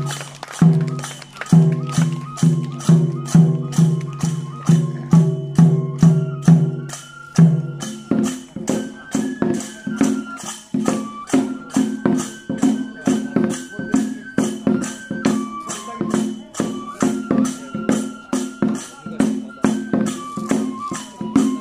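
Kagura hayashi music: drum beats at about two to three a second with small hand cymbals clashing, under a bamboo flute melody.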